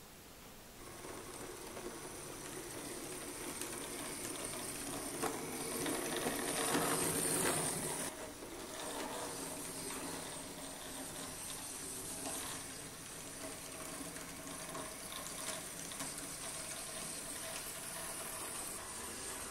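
Model electric locomotive (World Kougei 16-gauge model of the Ueda Kotsu ED25) running on its track: the motor and gears give a steady whine, with occasional clicks from the wheels. It starts about a second in, grows louder toward a peak around seven seconds, drops suddenly just after eight, then carries on more quietly.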